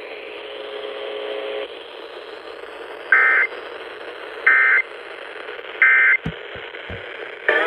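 Three short bursts of the EAS SAME data tone, the harsh two-tone digital squawk that is the end-of-message code closing the severe thunderstorm warning broadcast, about a second and a half apart over steady radio hiss. A few low thumps follow the last burst.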